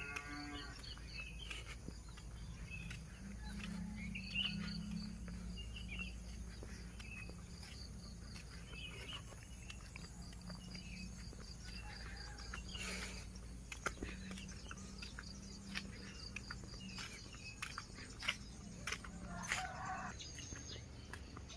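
Faint dawn countryside ambience: scattered short bird chirps over a steady, rapidly pulsing insect trill and a low steady hum. Light clicks run through it, fitting footsteps on the road.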